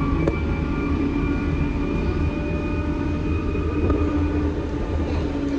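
A moving vehicle running steadily: a low rumble with a steady whine held over it.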